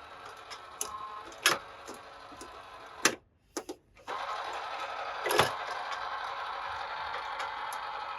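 Scattered sharp clicks and knocks of toy cars and their plastic packaging being handled. The sound drops out for about a second a little before halfway, then a steady hiss continues under further clicks.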